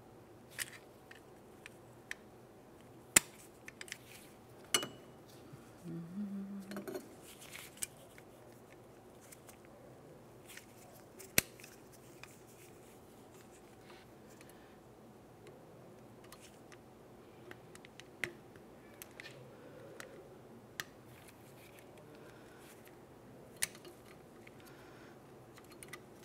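Scattered metallic clicks and scrapes from needle-nose pliers and a flat-blade screwdriver prying at a steel horseshoe clip on a drum brake shoe's parking brake lever pin. The clicks are irregular, with a couple of sharper ones about three and eleven seconds in.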